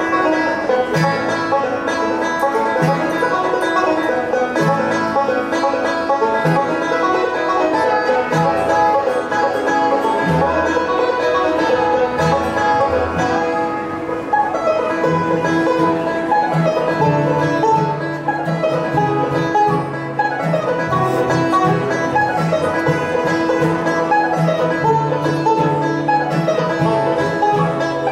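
Live acoustic bluegrass band playing an instrumental tune: five-string banjo rolls with fiddle, acoustic guitar and mandolin over an upright bass line.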